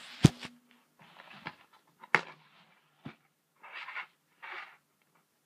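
Handling noises as a camera is set down and a plastic DVD case is opened: a sharp knock just after the start, a couple of lighter clicks, then two short rustling scrapes.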